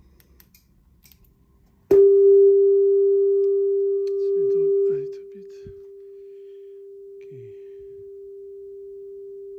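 Nakamichi Dragon cassette deck's calibration test tone during setup for metal tape: a steady pure tone of about 400 Hz that switches on abruptly about two seconds in. It drops to a much lower steady level about three seconds later and keeps sounding.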